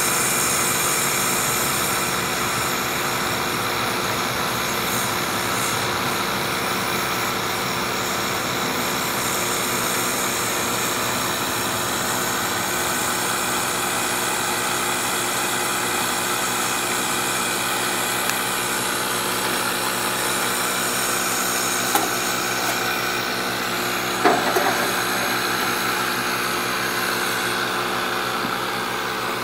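Downdraft wood gasifier running and feeding its stove-top burner: a steady mechanical hum with a rushing hiss, the sound of the gasifier's machinery and the woodgas flame. A sharp click about three quarters of the way through, and a brief clatter of knocks soon after.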